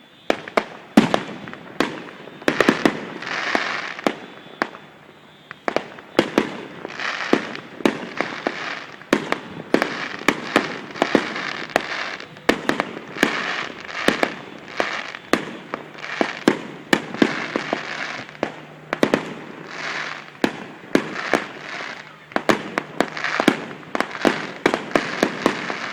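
Fireworks finale: a rapid, continuous barrage of aerial shell bursts, several bangs a second, overlapping with the crackle of the bursting stars.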